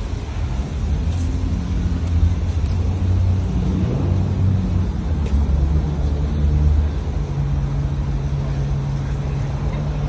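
Road traffic: a motor vehicle engine running close by, its low hum shifting in pitch as it passes, over a steady street rumble.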